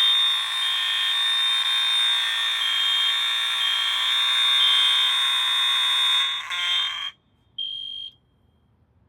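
Simplex fire alarm sounding continuously, a loud steady alarm tone with a higher tone pulsing about once a second. It cuts off abruptly about seven seconds in, followed by one short beep.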